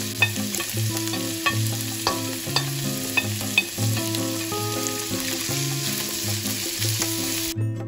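Hake and prawns sizzling in olive oil and onion in a frying pan as the flaked fish goes in and is stirred, with a few light clicks of plate and spatula against the pan. The sizzle cuts off suddenly near the end.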